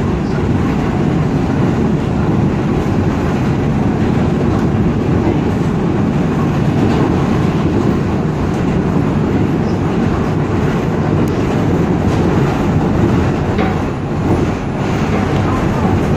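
Inside an R142 subway car on the move: the train's wheels on the rails make a loud, steady rumble, with a brief dip in level near the end.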